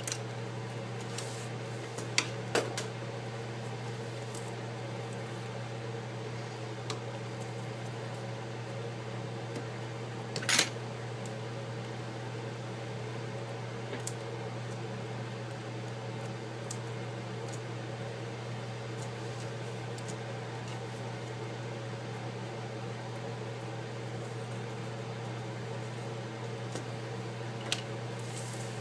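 Steady low electrical or mechanical hum of a small room, with a few small clicks and one brief scratchy rustle about ten seconds in from hands handling small parts and tape.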